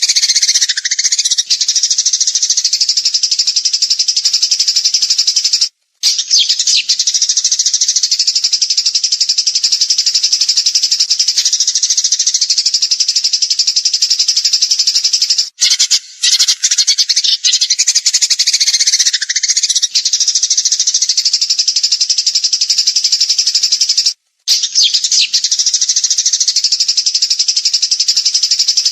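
Songbird singing a rapid, continuous high-pitched trilling 'tembakan' song, the fast rattling burst-song used as masteran to train caged birds. It is broken by three short silences, a little before halfway, just past halfway and near the end.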